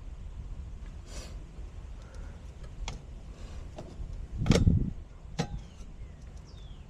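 Scattered knocks, clicks and scrapes of work handling, with one loud low thump about halfway through. A few short falling chirps sound in the background.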